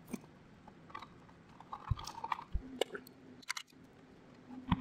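Scattered small clicks, rustles and a couple of soft knocks as hands work the nylon air-bag air line and push-mount zip-tie clips up under a pickup's frame rail.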